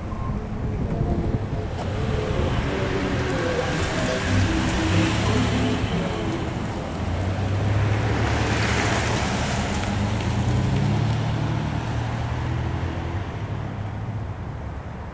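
Empty intermodal well cars rolling past on the rails: a steady rumble and rush of steel wheels on track, swelling twice and easing off near the end.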